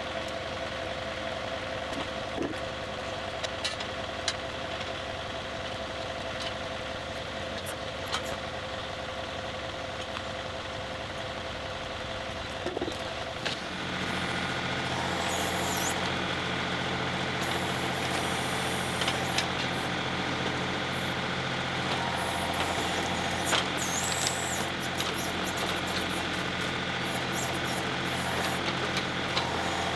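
A John Deere 2038R compact tractor's diesel engine idling, with occasional metal knocks as the backhoe bucket is swapped. About 14 s in, the engine runs louder and the 270B backhoe's narrow trenching bucket digs into rocky clay, with frequent knocks and clicks.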